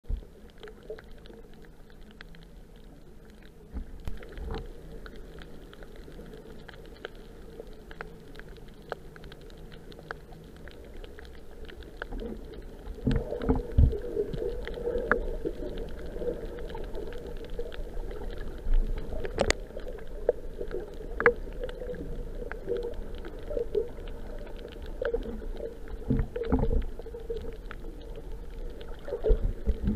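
Underwater ambience picked up by a camera on a shallow coral reef: a low rumble of moving water with a wavering tone and scattered clicks, growing louder about halfway through.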